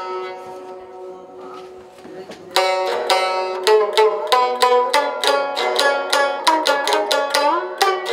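A Uyghur plucked string instrument played solo: a few plucked notes left ringing, then from about two and a half seconds in a quick run of picked notes, about four or five a second, with one sliding note near the end.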